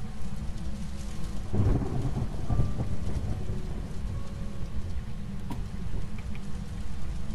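Rain-and-thunder ambience: a steady low rumble of a storm with a louder roll of thunder about a second and a half in.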